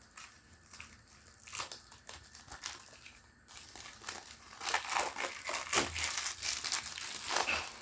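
Plastic shrink-wrap being torn and crumpled off a Blu-ray case, as irregular crinkling and crackling that gets louder about halfway through.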